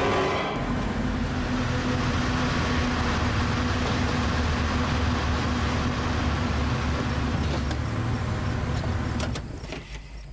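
Car running: steady engine hum and road noise, fading out near the end.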